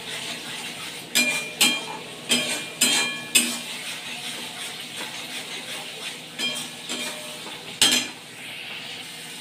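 Spiced masala with yogurt frying in a metal wok (kadhai) as it is fried down, sizzling steadily while a spatula stirs and clinks against the pan. A quick run of ringing clinks comes in the first few seconds and two more near the end.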